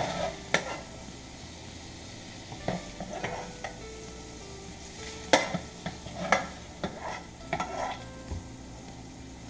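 Olive oil sizzling steadily in a frying pan. A plastic slotted spoon scrapes and knocks against the pan about a dozen times as cooked shrimp are scooped out, with the sharpest clicks at the start and about five seconds in.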